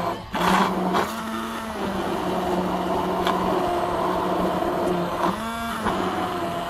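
Electric kitchen blender running steadily as it blends cassava leaves, a steady motor hum whose pitch wavers briefly about five seconds in.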